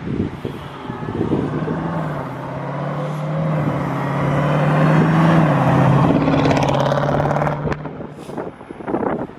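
A car engine running steadily, its hum growing louder toward the middle and fading near the end, with a couple of dips in pitch along the way. A few sharp knocks come near the end.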